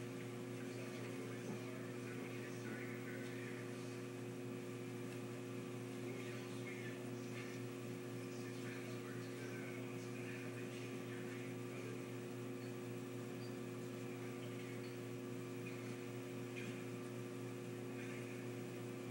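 A steady electrical hum made of several fixed tones, unchanging throughout, with a few faint scattered ticks.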